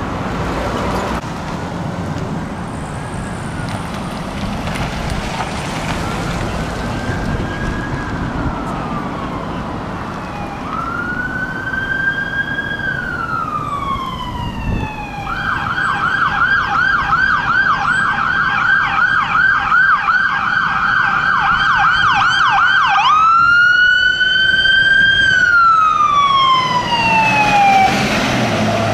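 A wildland brush engine's electronic siren approaching on a code 3 response. It wails faintly at first, then louder, switches to a rapid yelp about fifteen seconds in, and goes back to the wail for the last few seconds, over traffic noise.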